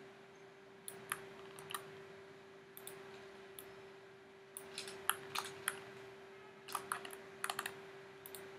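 Scattered clicks of a computer keyboard and mouse, some single and some in quick runs, over a faint steady hum.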